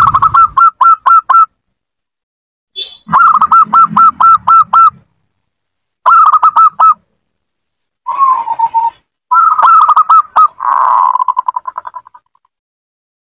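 Zebra dove (perkutut) cooing: loud bursts of rapid, clipped coos on one pitch, several notes in quick succession, with short pauses between the bursts. About two-thirds through, the notes blur into a buzzier rolling trill.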